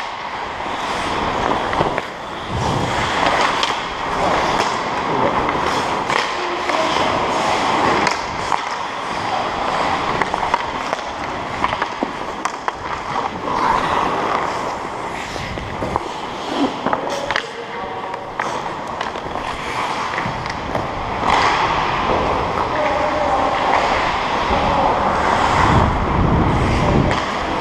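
Ice hockey skates gliding and scraping on rink ice, with scattered sharp clacks of sticks and puck.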